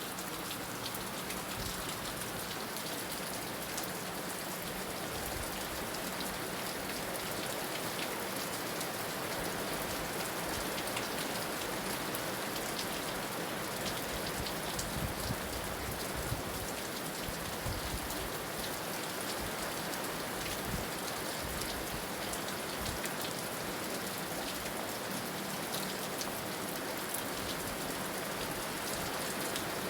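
Heavy rain falling steadily, with scattered sharp drops ticking on a hard surface over the constant hiss.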